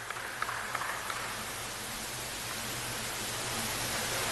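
Steady hiss of arena ambience with a faint low hum, and a few light ticks of a table tennis ball in the first second.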